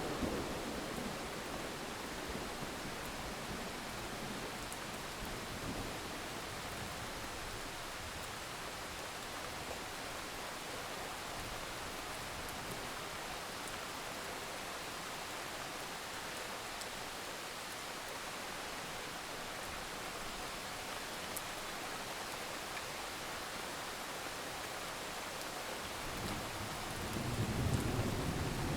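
Steady rain hissing throughout. A roll of thunder is fading out at the very start, and another low rumble of thunder builds up near the end.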